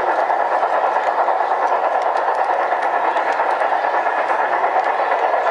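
Large-scale model freight train of double-stack container cars rolling past close by: a steady rolling rumble of the wheels on the track with fine ticking.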